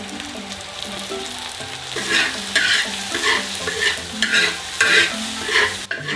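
Stir-fry of cured pork and vegetables sizzling in a large wok. From about two seconds in, a metal ladle scrapes and tosses the food about twice a second. The frying sound cuts off suddenly near the end.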